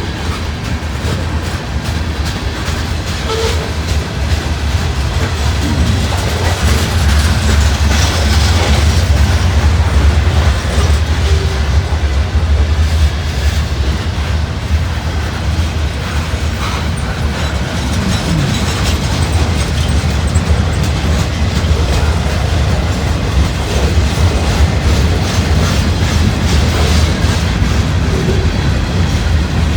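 Freight cars of a long train rolling past, wheels clacking over the rail joints over a steady low rumble, with an occasional faint wheel squeal.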